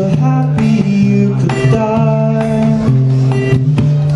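A single acoustic guitar played by several people at once: plucked notes and sharp percussive hits in a steady rhythm over long held low notes.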